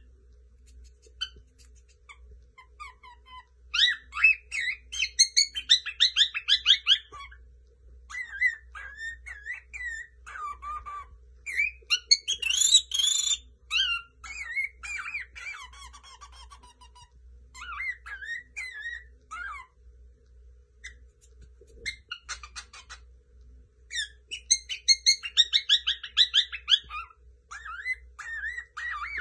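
Lutino cockatiel chattering and warbling in bursts of rapid whistled notes, with a pause of a few seconds about two-thirds of the way through.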